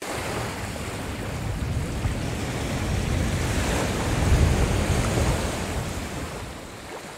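Rushing noise of wind and sea surf, steady, swelling about four seconds in and easing off near the end.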